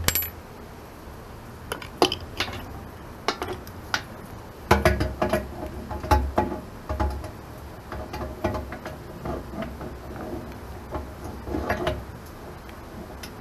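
A homemade steel wrench clinking and knocking against the hydraulic suction filter and the walls of an excavator's hydraulic reservoir as it is tried on the filter, in scattered taps with a busier stretch of dull bumps and clatter in the middle; the wrench is not big enough to grip the filter.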